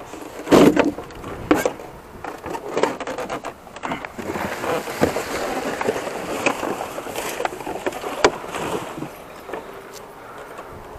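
Irregular knocks, thuds and scraping of wooden doors and scrap debris being stepped on and shifted inside a dumpster, the loudest knock about half a second in, with rustling and scraping from about four to nine seconds in.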